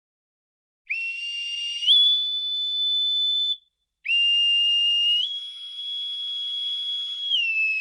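Two long whistle tones with a slightly breathy edge, the first lasting under three seconds and the second longer. Each jumps up to a higher steady pitch partway through, and near the end the second drops back down and begins sliding lower.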